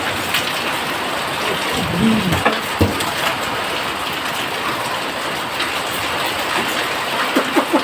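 Steady rain falling, an even hiss of rain on the ground. A short voice and a sharp knock come about two to three seconds in.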